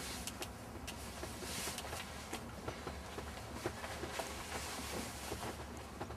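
Small boat's engine running steadily as a low hum, with scattered light clicks and taps.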